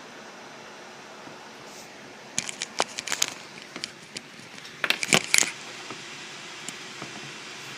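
Gigabyte P25W laptop's cooling fan blowing as a steady hiss, picked up through an earbud microphone. Two clusters of sharp clicks and knocks cut in, one a couple of seconds in and one about five seconds in. After the second cluster the hiss is a little louder.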